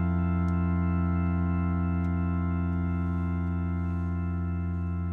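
Church organ holding one sustained chord with a strong low bass note, steady and unchanging: the closing chord of an organ improvisation.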